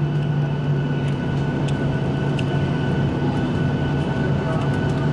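Cabin noise of a Boeing 737-800 rolling along the runway after landing: its CFM56 engines give a steady low hum over a constant rushing rumble.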